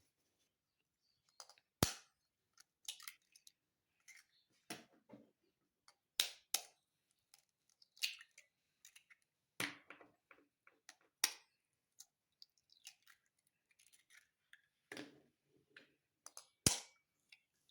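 Four eggs being cracked one after another: sharp taps of eggshell against a hard edge, a few seconds apart, with softer shell crackling between them.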